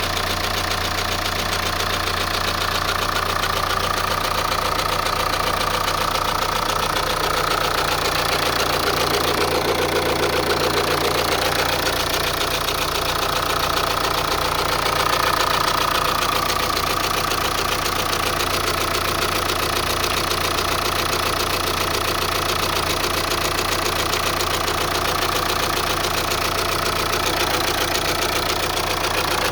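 Opel Insignia B's B20DTH 2.0-litre diesel engine idling steadily with a dense, even clatter and a faint whine that drifts in pitch. The owner is asking whether the rattle comes from the timing chain or a belt, possibly at a cold start.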